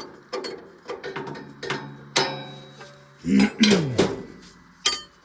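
Hand wrenches clinking against the metal fittings of a backhoe's hydraulic hose: a string of sharp metallic taps and knocks as the fitting is worked loose. A short vocal sound, louder than the taps, comes a little past the middle.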